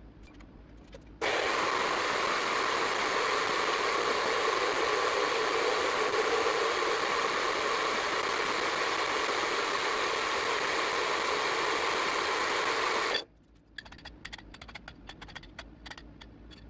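Small metal-cutting bandsaw cutting through an aluminium plate: a steady, even cutting noise that starts suddenly about a second in and stops abruptly after about twelve seconds. Light clinks and rattles follow as the cut piece is handled.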